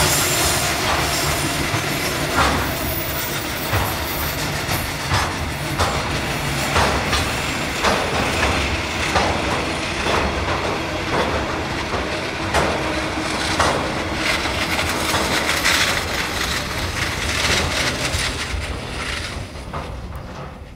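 Freight wagons loaded with tank containers, then empty container flats, rolling past on narrow-gauge track: a steady rumble and hiss of wheels on rail with sharp clickety-clack beats about once a second. The sound fades away near the end as the last wagon passes.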